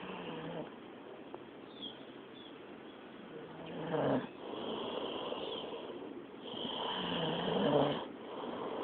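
A young man snoring: two drawn-out snores with a low, pitched rattle, one about four seconds in and a longer one near the end, quieter in between.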